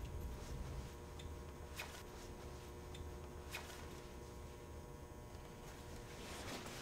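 Quiet room tone with a low hum and a few soft clicks, then jacket fabric rustling near the end as the jacket is unzipped and pulled off the shoulders.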